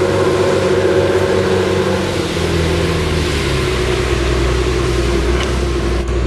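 Komatsu D61PX bulldozer's diesel engine running steadily while grading; about two seconds in its note drops lower and deepens.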